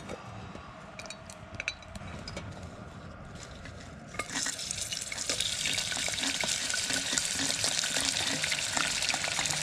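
Hot oil in a pressure cooker sizzling as chillies, ginger, garlic and bay leaves are tipped in. The sizzle starts suddenly about four seconds in and keeps going. Before that there are only a few faint clinks of chopsticks on metal.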